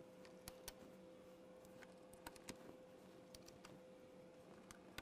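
Near silence with faint, scattered small clicks of plastic push pins being handled, over a faint steady hum of room tone.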